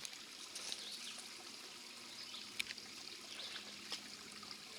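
Small trail-side stream trickling, faint and steady, with a few light clicks.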